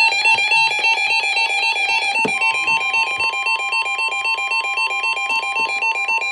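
Rapid electronic beeps pulsing many times a second and stepping between several pitches, like a fast tune. About two seconds in, a steady high tone joins them and holds: the NOAA Weather Radio 1050 Hz warning alarm tone that precedes an alert broadcast.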